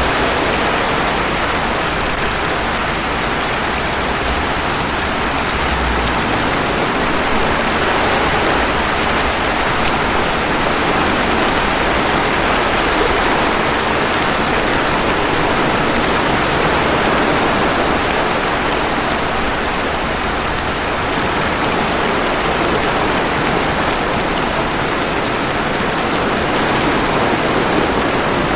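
Steady rain, an even hiss without pauses or distinct drops.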